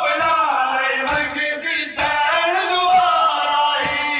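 A group of men chanting a mourning lament (nauha) in unison, with rhythmic thuds of matam, hands beating chests, about twice a second.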